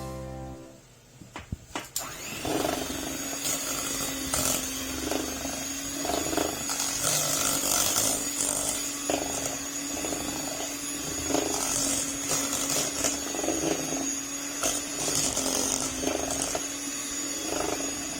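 Electric mixer beating cream cheese and condensed milk, running at a steady speed with irregular clicks and knocks. It starts up about two seconds in.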